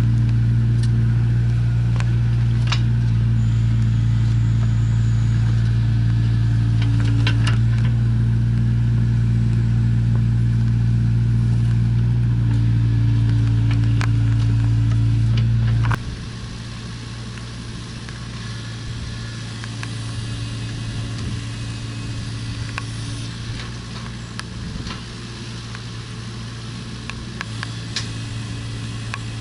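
Diesel engine of heavy construction machinery (excavator or dump truck) running with a steady low hum, with scattered sharp clicks and knocks. About halfway through the sound drops suddenly to a quieter, more distant engine hum.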